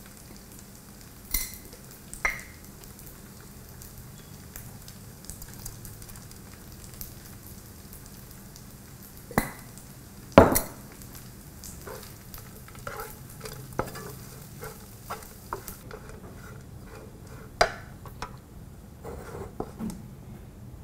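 Stir-frying in a frying pan: oil sizzling under scattered sharp clacks of a spatula against the pan, the loudest about ten seconds in.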